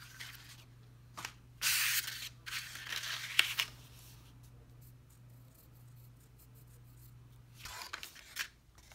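Folded textured cardstock pieces rustling and sliding across a tabletop as they are handled, in several short bursts, the loudest about two seconds in and another near the end.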